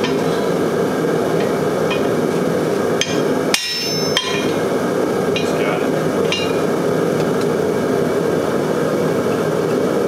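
Blacksmith's hand hammer striking a hot 1 1/2" square steel bar on an anvil: a handful of irregular blows with a metallic ring, the loudest about three and a half seconds in. Under the blows runs a steady shop roar.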